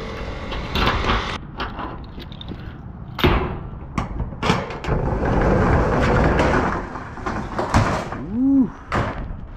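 A run of clunks and knocks, with a few seconds of steady rattling in the middle and a short rising-and-falling squeak near the end, like a door or heavy gear being moved about.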